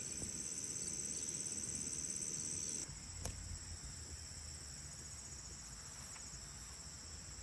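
Insects in a late-summer garden chirping in a steady, high-pitched, finely pulsing chorus, with a faint low rumble underneath. The chorus drops a little in level about three seconds in.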